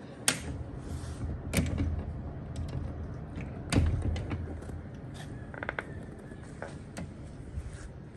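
A wooden-framed glass sliding door being unlatched and slid open: a string of clicks and thumps, the loudest about four seconds in, with a short rattle a little later.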